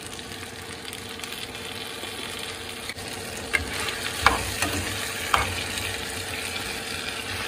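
Red chile sauce poured into hot fat with browned meat and potatoes in an earthenware pot, sizzling steadily as it fries, while a metal spoon stirs it, clinking against the pot a few times midway.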